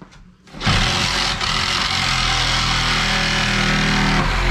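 Power tool motor running steadily at full speed for about four seconds, starting suddenly and cutting off abruptly, while working on the old wooden equipment platform.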